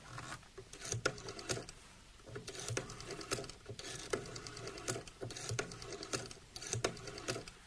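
Rotary telephone being dialled: about seven runs of rapid clicks, one for each digit as the dial spins back.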